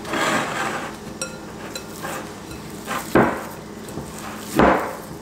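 Hands working a soft almond-flour dough out of a glass mixing bowl, with a dull knock about three seconds in and a louder, deeper one about a second and a half later.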